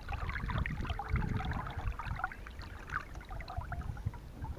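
Small splashes and trickling water around a hand holding a piapara in the river as it is let go, over a steady low rumble.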